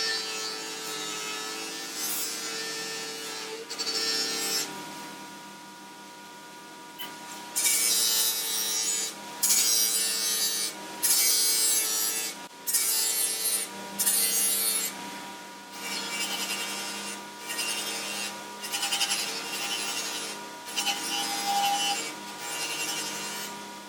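Motor-driven polishing wheel running with a steady hum while brass carriage-lamp fittings are pressed against it in repeated hissing strokes of about a second each, heavier from about a third of the way in: repolishing the brass mountings before painting.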